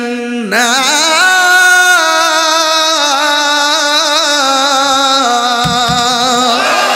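A man chanting a Quran verse in the melodic tilawat style through a microphone. He holds long, ornamented notes with a heavy vibrato and glides up into a high sustained note about half a second in.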